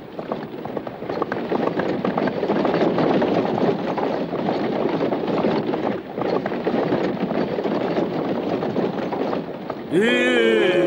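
Cartoon horse-drawn carriage racing: a rapid, continuous clatter of hoofbeats and rattling wheels. About a second before the end, a ship's horn blows, sliding up in pitch and then holding a steady chord.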